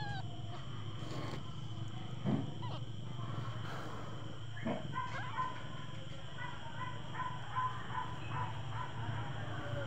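Mother cat purring steadily while lying with her newborn kittens. From about halfway through, faint high squeaks from the kittens come in.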